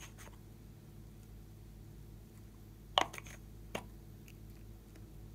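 A sharp click about three seconds in, followed quickly by a few lighter clicks, from a glass nail polish bottle and its plastic cap and brush being handled over a glass dish of slime; a faint steady low hum underneath.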